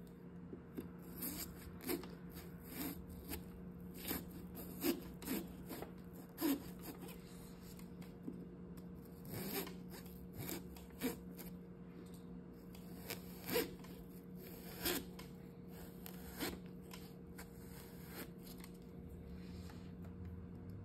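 Small serrated knife sawing into a pumpkin's rind around the stem to cut the lid: irregular short rasping strokes and clicks, spaced about half a second to a couple of seconds apart.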